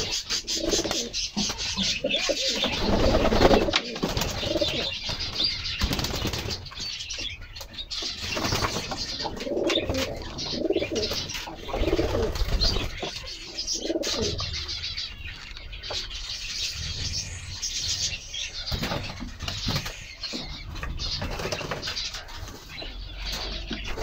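Domestic pigeons cooing again and again, mixed with wing flapping and splashing as birds bathe in bowls of water.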